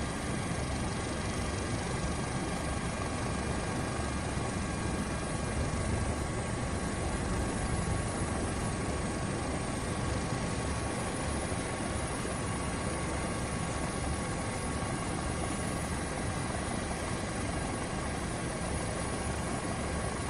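Helicopter running steadily: a dense, even drone of rotor and engine noise with a few faint, steady whining tones above it.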